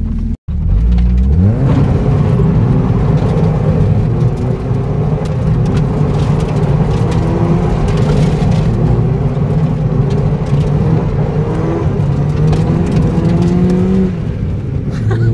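Car engine heard from inside the cabin, accelerating through the gears. Its pitch climbs in repeated sweeps and drops back at each shift. The sound cuts out for an instant about half a second in.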